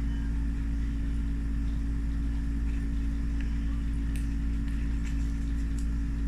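A steady low hum, like a fan or appliance motor, with a few faint light clicks and scrapes from a spoon stirring glue and baking soda in a bowl.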